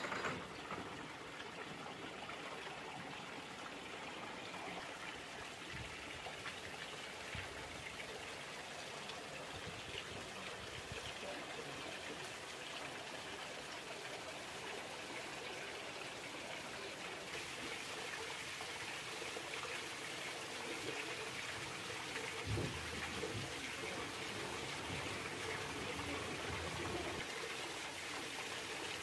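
Water running and trickling in a canal lock as it empties. It is a steady splashing hiss, a little louder in the last third.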